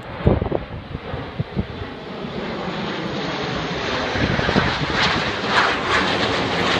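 Jet noise from the Red Arrows' formation of BAE Hawk jets passing overhead, a broad rushing roar that grows steadily louder and then cuts off suddenly at the end. A few low thumps of wind on the microphone come in the first second or so.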